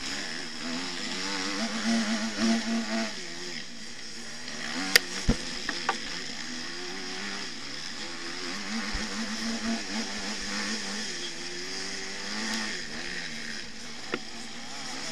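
Motocross bike engine revving up and down as it is ridden hard, heard from a camera mounted on the bike, under a steady hiss. A few sharp knocks come about five seconds in and one more near the end.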